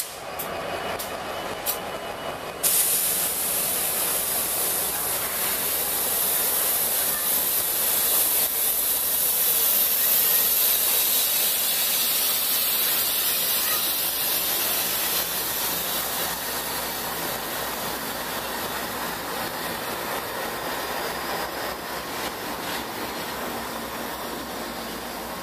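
Freight train rolling past close by: diesel locomotives and then empty intermodal well cars running over the rails, a steady rushing hiss of wheels and rail noise. It steps up suddenly a few seconds in and eases off slowly as the cars go by.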